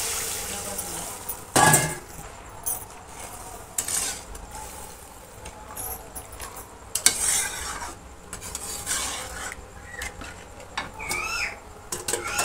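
Water poured into hot fried masala in a metal kadhai, hissing briefly. This is followed by a flat spatula stirring and scraping the thinned curry gravy around the pan, with one loud clank about a second and a half in and scattered knocks of spatula against metal.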